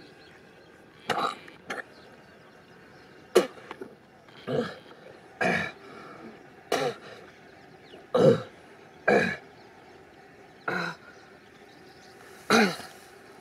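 A man coughing in about ten short, irregular bursts, the loudest and longest near the end.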